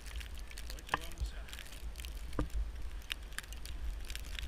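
Wind buffeting the microphone as a steady low rumble, with scattered crackles and clicks.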